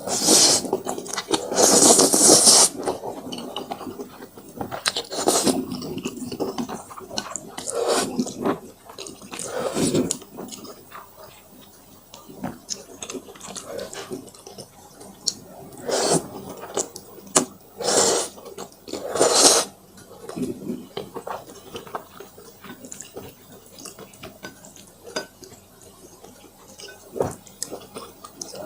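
A person eating spicy instant fire noodles up close: several loud wet slurps spread through, with quieter stretches of chewing between them. A few light clicks of utensils against the bowl.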